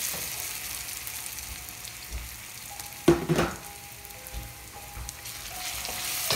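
Fried Chinese yam pieces sizzling in a wok of hot oil and melting white sugar as they are stirred and coated with a wooden spoon. There is a steady hiss, with one sharp knock about three seconds in.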